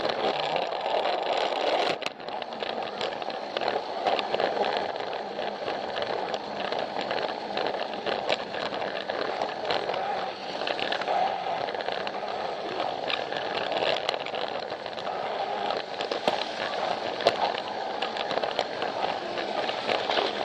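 Plarail battery-powered toy train running on plastic track: a steady motor-and-gearbox hum with frequent small clicks as the wheels pass over the rail joints.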